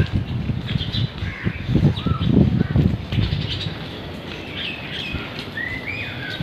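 Birds chirping with short rising and falling calls, clearest in the second half, over a low hum of street noise. A louder burst of low rustling noise comes about two seconds in.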